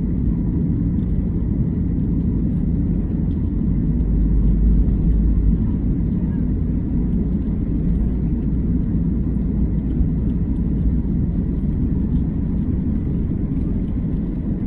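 Jet airliner cabin noise: a steady low rumble of the engines and airframe heard from inside the cabin, swelling slightly a few seconds in.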